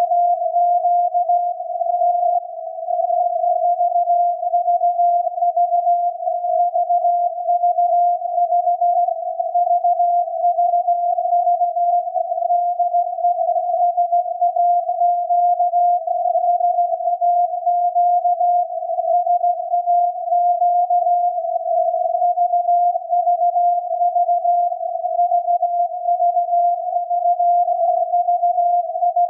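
The 17.2 kHz VLF carrier of SAQ's Alexanderson alternator transmitter, received by radio and heard as a steady tone near 700 Hz. The tone is slightly rough and wavering, its pitch drifting a little around 700 Hz, and it does not break off.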